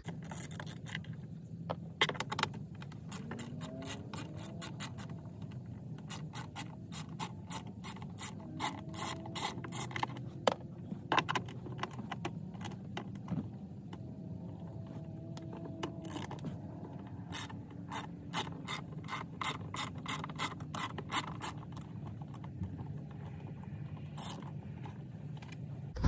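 Socket ratchet clicking in quick runs, backing out the 5.5 mm screws that hold the plastic trim under a steering column.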